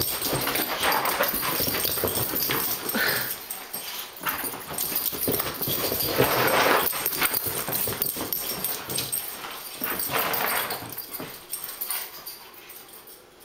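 A boxer mix and a basset hound at rough play, scuffling and making dog noises in irregular bursts that fade away near the end.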